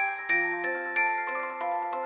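Background music: a gentle melody of bell-like struck notes on a glockenspiel-type mallet instrument over soft sustained chords.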